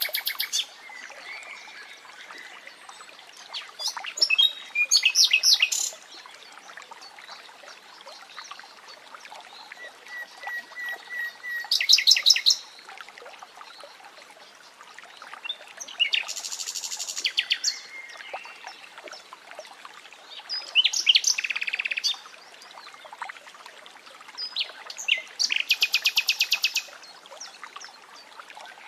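A nightingale singing in separate phrases every few seconds: fast repeated notes and rattling trills, and once a run of slow, level whistles that swell louder before breaking into a trill. Faint running water hisses steadily underneath.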